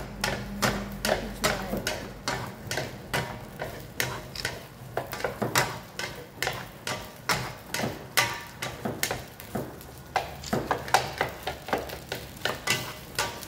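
Two wooden spatulas knocking and scraping against a nonstick frying pan as small Vienna sausages are tossed and stir-fried, a quick, uneven run of clacks about three a second.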